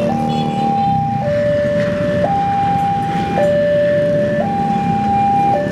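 Railway level-crossing warning alarm sounding an electronic two-tone signal, switching between a higher and a lower tone about once a second, which warns of an approaching train. A low rumble of road traffic runs beneath it.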